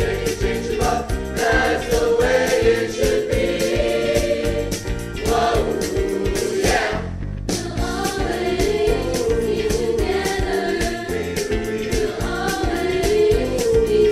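Dance music with singing over a steady beat. About halfway through, a rising sweep leads into a brief break, and then the song starts again.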